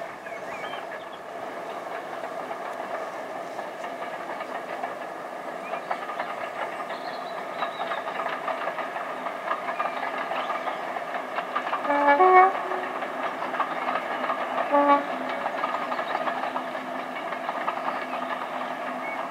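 English Electric Class 37 diesel locomotive 37688 hauling a train of coaches past, its V12 engine running steadily over rattling wheels. About 12 s in the horn gives a blast that steps from a low note to a high note, and a shorter low blast follows about three seconds later.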